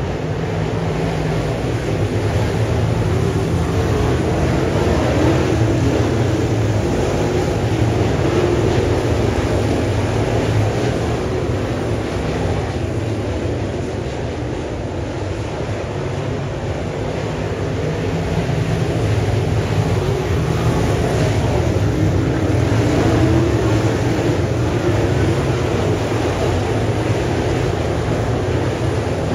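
A field of dirt late model race cars with 604 crate V8 engines running at speed around the track, a steady roar that swells and eases as the pack comes around.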